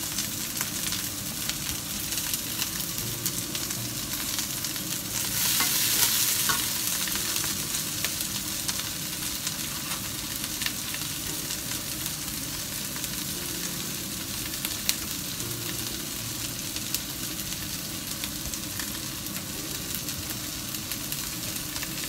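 Garlic and onion sizzling in olive oil in a nonstick frying pan: a steady frying hiss that swells louder for a moment about five seconds in, with a few light ticks.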